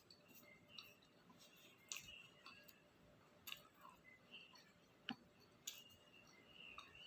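Faint eating sounds of chewing takoyaki: small wet mouth clicks and smacks, with a few sharper clicks standing out.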